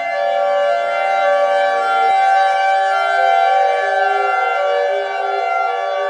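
A steady, siren-like alarm tone: several pitches sound at once and hold, while the lower notes shift in small steps.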